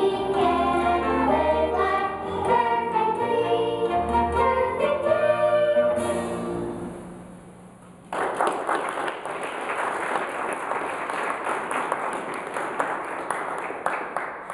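A musical number with singing and instrumental backing ends and fades away; about eight seconds in, an audience breaks into applause.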